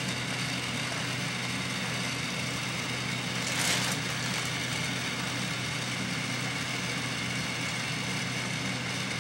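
Fan of a forced-air herb vaporizer running steadily with an even hum, blowing 375°F air through the herb chamber to fill the balloon bag with vapor. A brief rustling noise rises about three and a half seconds in.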